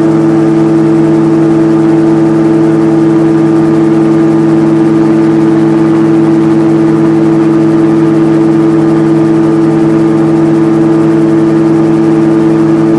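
RAF 2000 gyroplane in cruise flight, heard from the cockpit: a loud, steady drone of the engine and propeller that holds one pitch throughout, over a rush of air.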